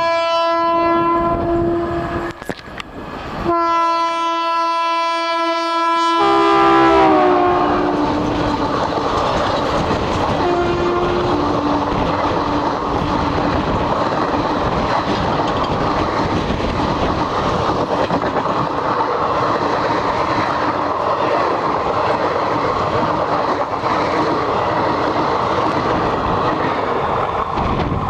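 Indian Railways WAP1 electric locomotive's horn sounding two long blasts, the pitch dropping as the locomotive passes, with a couple of short lower toots a few seconds later. The express's coaches then rush by at speed in a steady noise of wheels and rails.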